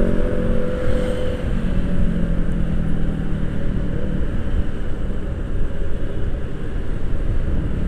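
Motorcycle riding at speed, picked up on an action camera's microphone. Wind and road noise make a dense, even rumble over the running engine.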